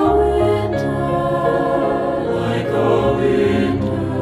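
Mixed SATB choir singing a slow, sustained passage with piano accompaniment.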